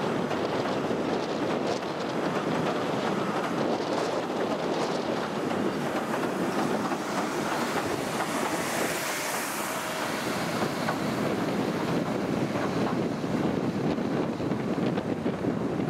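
Steady wind noise on the microphone over the low running of an AC Cars electric pier train drawing slowly into a station. A brief hiss comes about nine seconds in.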